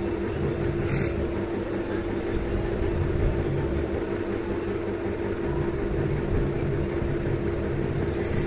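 Steady mechanical hum with a constant tone over a low rumble, and a brief faint hiss about a second in.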